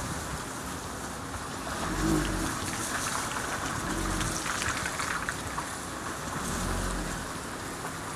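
Car suspension creaking three times, short low creaks about two seconds apart, over steady road and tyre noise.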